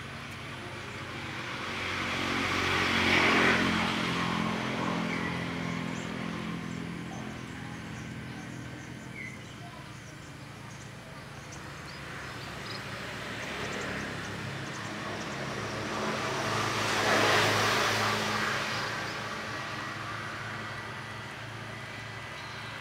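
Two motor vehicles passing one after the other: the first about three seconds in and the second around seventeen seconds, each engine sound swelling and fading over several seconds.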